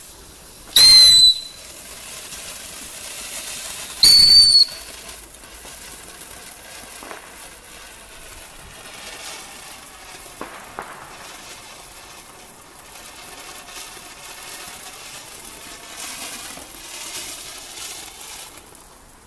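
Panda Mini Cuckoo firework fountain: two short, loud whistles about a second in and about four seconds in, then a steady hiss as it sprays sparks.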